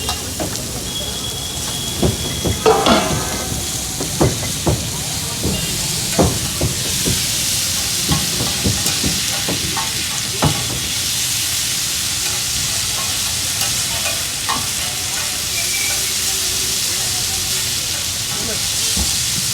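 Food sizzling and frying in oil on a hot griddle, a steady hiss, while a metal spatula stirs and knocks against the griddle in a string of sharp clicks through the first ten seconds or so.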